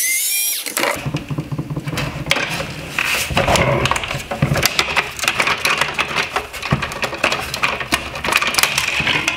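A screw squeals briefly as it is backed out of the plastic housing of a BMW X3 LED headlight. Then comes a long run of plastic creaking, clicking and rubbing as the headlight's bottom bezel trim is worked loose by hand.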